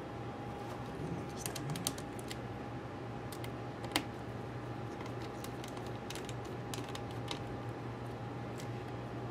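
Scattered small clicks and taps of a screwdriver and tiny Torx screws against a laptop's metal case and fan housing, with one sharper click about four seconds in. A steady low hum lies under them.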